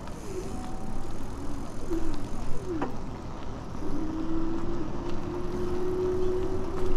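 An electric bicycle riding along a paved path: wind rushing over the microphone and tyre noise, with a steady motor whine that rises slightly in pitch from about four seconds in.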